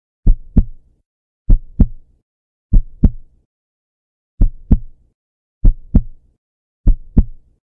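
Heartbeat sound effect: six deep lub-dub double thumps, about one beat every 1.2 seconds, with silence between beats.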